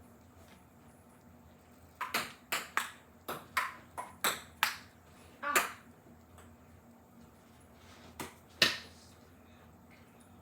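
A cat toy ball used as a ping pong ball, tapping back and forth off paddles and the table in a rally: a quick run of about ten sharp taps, a pause, then two more taps near the end, the last one the loudest.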